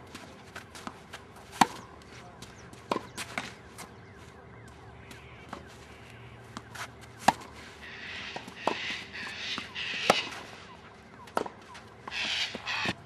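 Tennis ball being struck by racket strings and bouncing on the court during a rally: sharp pops every second or two, with fainter bounces between. A scratchy, hissing noise rises around two-thirds of the way through and again near the end.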